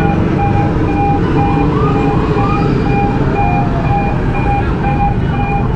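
An electronic beeper sounding a steady, single-pitched beep about twice a second, over the low rumble of a vehicle in traffic.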